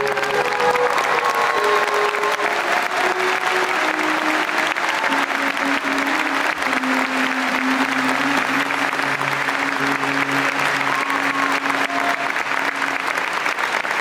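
Concert audience applauding loudly over the band's closing notes: a melody stepping downward, then a long held low note that stops shortly before the end.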